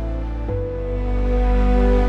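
Soft background music of held, sustained chords, moving to a new chord about half a second in.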